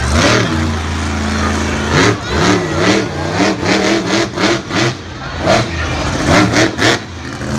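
Monster truck engine revving hard in repeated throttle blips, its pitch rising and falling about twice a second from about two seconds in.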